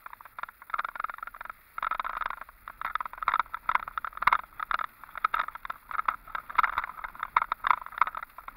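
Irregular crackling rattle in quick, uneven bursts, heard from inside a vehicle driving a rough dirt road.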